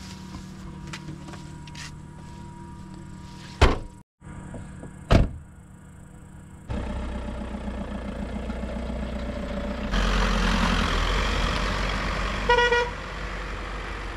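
A car's tailgate slams shut, and a car door slams about a second and a half later. The Škoda Roomster's engine then runs and the car pulls away with rising road noise. Near the end there is a short horn toot.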